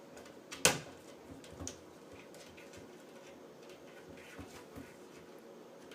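A sharp knock about half a second in, then a fainter one about a second later and a few small clicks over steady room noise.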